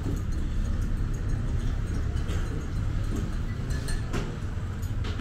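A steady low rumble with a few scattered clinks and knocks, the clearest about four seconds in.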